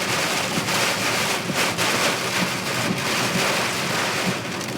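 Heavy rain hitting a moving car, a steady hiss of rain mixed with road noise.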